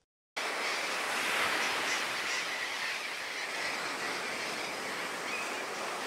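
Sea surf washing on the shore, a steady rushing noise that starts after a brief silence and eases slightly towards the end.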